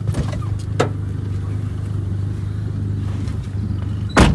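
Manual-transmission car's engine running at low speed, a steady low hum, with a short click about a second in and a loud sharp knock near the end.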